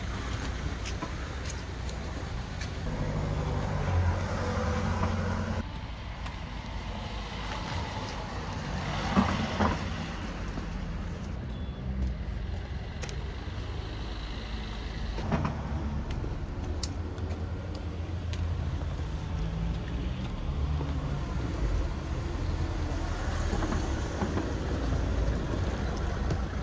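Steady road traffic with a low engine rumble, and a few short knocks, the sharpest about nine seconds in.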